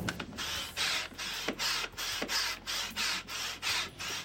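Upright hand-operated barrel air pump worked quickly up and down, each stroke a short rush of air, about two and a half strokes a second, inflating the pontoons of an inflatable pontoon boat.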